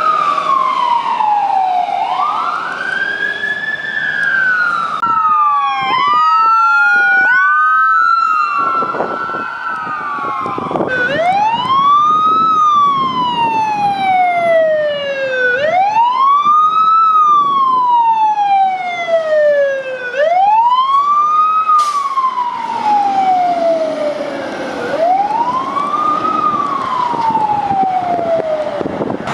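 Emergency vehicle sirens wailing, each cycle rising quickly and falling slowly over about four seconds. Between about five and eleven seconds in, faster sweeps from several sirens overlap.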